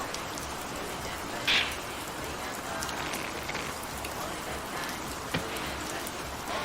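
Steady rain falling, an even hiss of drops, with a short louder burst of noise about a second and a half in and a single sharp click near the end.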